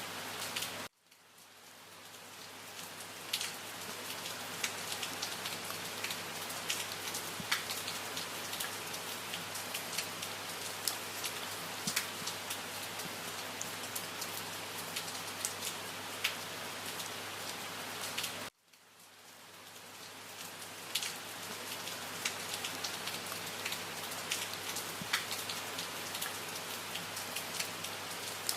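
Steady rain falling, an even hiss with many distinct drops ticking through it. Twice, about a second in and again about two-thirds of the way through, the sound cuts out suddenly and swells back over a couple of seconds.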